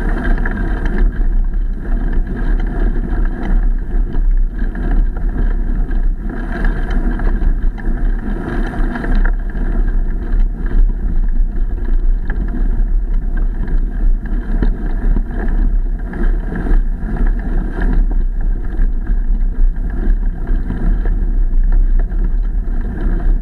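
Wind buffeting the microphone over a steady rumble from a camera on a moving ride, with uneven jolts from the ground.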